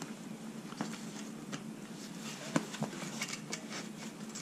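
Handling noises: light rustling and small clicks, with one sharper click about two and a half seconds in, over a faint steady hum.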